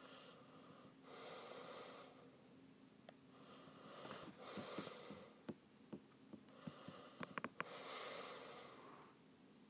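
A person's faint breathing, one breath about every three seconds, with scattered light clicks in between.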